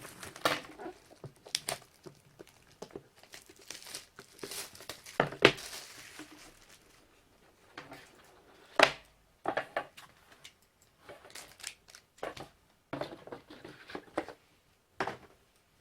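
Plastic shrink-wrap and packaging on a trading-card hobby box being torn open and crumpled: irregular crinkling and tearing, with a sharp snap about five seconds in and another about nine seconds in.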